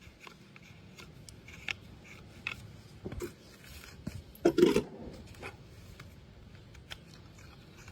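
Hoof nippers cutting the outer edge of a horse's hoof wall in a few short, sharp snips, the loudest about halfway through.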